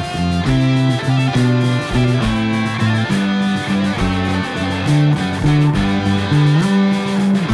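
Rock song with an electric bass fingerpicked along, its line stepping from note to note under electric guitars.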